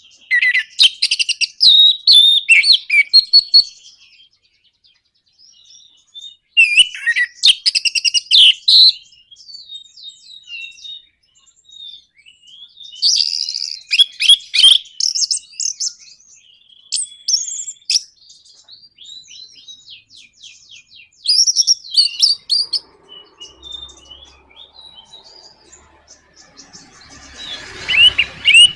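Orange-headed thrush singing its rapid, chattering 'nraktak' song. The song comes in loud bursts of fast notes with pauses between them: three long bursts in the first half, then shorter, softer phrases. A low noise rises under the song near the end.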